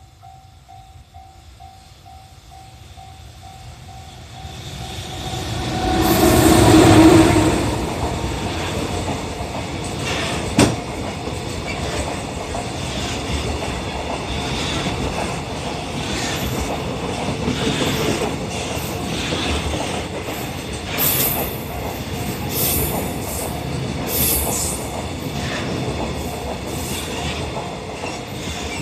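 A level-crossing alarm dings in a steady pulse as an EF210 electric locomotive hauling a freight train approaches and passes, loudest about six to eight seconds in. A long run of freight wagons follows, rumbling and clacking over the rail joints with a few brief high wheel squeals.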